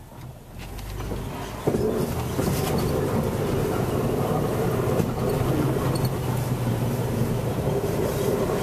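Jeep plow vehicle's engine running steadily. It comes in suddenly and much louder a little under two seconds in, after a quieter start.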